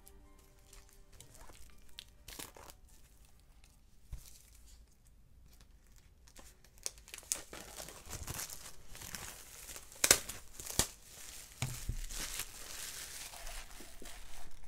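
Plastic wrapping tearing and crinkling as cardboard game tiles are unwrapped and handled. It starts faint and grows busier from about seven seconds in, with two sharp snaps around ten seconds.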